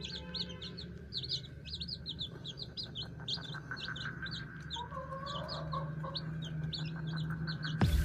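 Aseel chicks peeping in rapid, continuous high chirps, with the Aseel hen giving a low clucking call about five seconds in.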